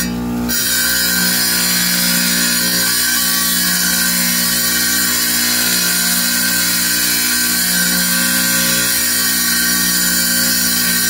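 Wet tile saw running steadily: the motor hums and the blade spins.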